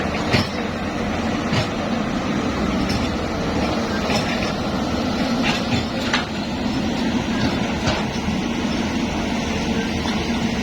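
Excavator engine running steadily, with scattered sharp knocks.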